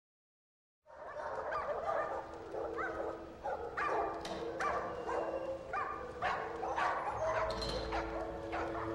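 Dogs in pound kennels barking and yipping, many short overlapping barks starting about a second in, over a low steady hum.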